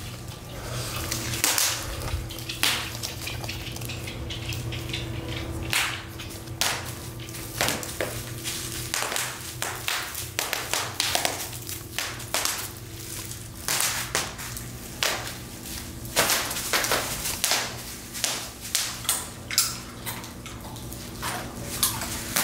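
Footsteps on a floor covered in bubble wrap: irregular plastic crinkling with sharp crackles and pops as the sheets are trodden on.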